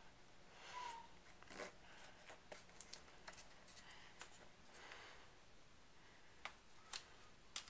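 Faint scraping and rubbing of a cotton swab working dirt out of a keyboard, with a few light clicks in the last two seconds.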